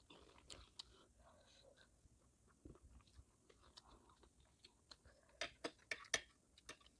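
Faint chewing of silkworm pupae. About five seconds in comes a quick run of sharp clicks as a metal spoon scrapes and taps on a ceramic plate to scoop up more pupae.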